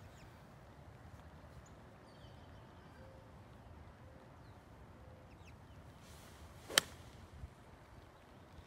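Golf iron swung at a teed-up ball: a short swish, then one sharp click as the clubface strikes the ball, about seven seconds in.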